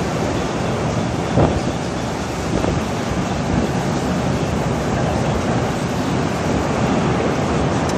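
Strong storm wind rushing steadily over the phone's microphone near a large tornado. There is one brief knock about a second and a half in.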